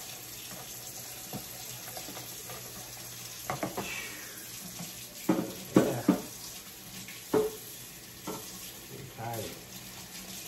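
Kitchen faucet running steadily into the sink during dishwashing. Several short knocks and clatters of dishes being handled come through it, the loudest a cluster about five to six seconds in.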